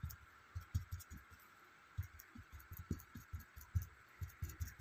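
Paintbrush tapped repeatedly against the paper to stipple paint: an uneven run of soft, dull taps, about three or four a second.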